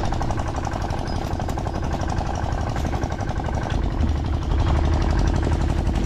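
A small engine running steadily with a fast, even pulse; its low hum grows louder about four seconds in.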